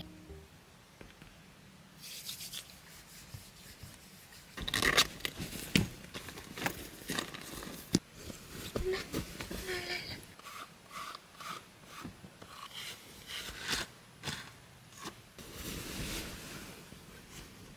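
Rustling and rubbing of a quilted blanket and bedding as it is shifted and pulled up, with scattered small clicks and scrapes of handling.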